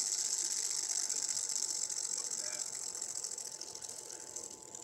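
Fidget spinner whirring on its bearing: a fast, fine rattling whir that slowly fades as the spin winds down.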